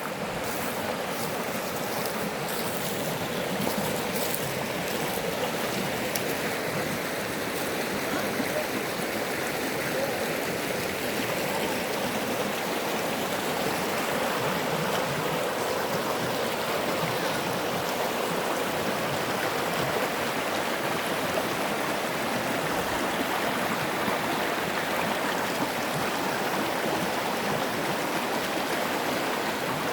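A creek flowing: a steady, even rush of running water.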